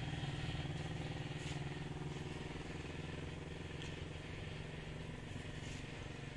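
A small engine running steadily in the background, a low pulsing hum that slowly grows fainter.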